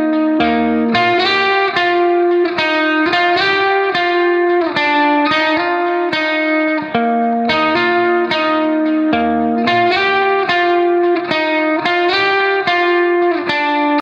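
Background music: a guitar picking a repeating melody of plucked notes, some held over a steady low note.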